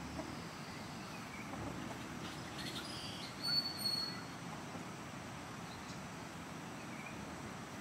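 Quiet yard ambience with a steady low background hum, broken about halfway through by two short, high, level-pitched chirps from a bird.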